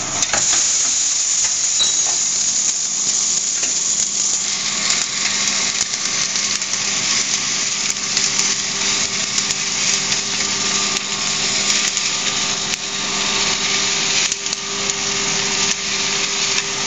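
Freshly roasted coffee beans rattling and hissing in a coffee roaster's cooling tray as its rotating stirring arms sweep them round, a dense patter of small clicks over a steady motor hum.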